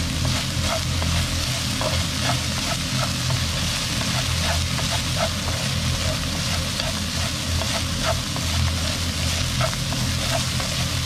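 Minced pork with shiitake mushrooms and onion sizzling as it is dry-fried in a nonstick wok. Frequent light, irregular scrapes and taps of wooden utensils stir it, over a steady low hum.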